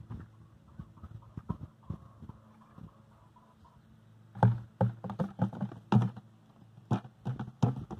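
Irregular knocks and thumps close to the microphone, a few light clicks at first, then a quick uneven run of louder knocks from about halfway through.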